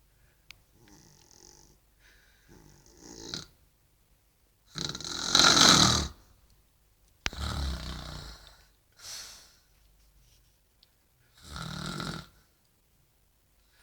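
A woman snoring in her sleep: about six snores and breaths a few seconds apart, the loudest and longest about five seconds in.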